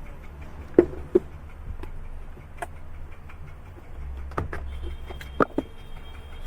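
Scattered light clicks and taps of tools and parts being handled while an LED TV's speaker is taken out for replacement, over a low steady hum.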